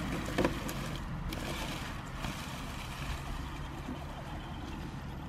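A 1/10-scale RC crawler truck driving slowly over wet rocks and dry leaves: its small electric motor and drivetrain run under a steady hiss, with a few light knocks near the start and about two seconds in.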